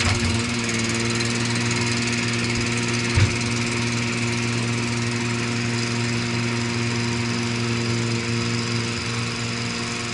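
Eurodig Dumpy 800 compact digger's engine running at a steady speed while the boom raises its grab, with one short knock about three seconds in.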